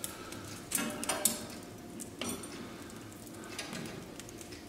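A wood fire burning in a fireplace with a handful of sharp clicks and clinks, some with a short metallic ring, from the fire and the iron roasting spit; the strongest come about a second in.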